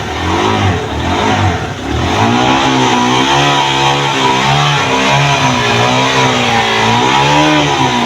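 Background music with a wavering melodic line.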